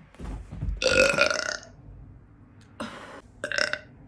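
A loud, long burp lasting over a second, with a deep rumble at its start, followed by smaller sounds near the end.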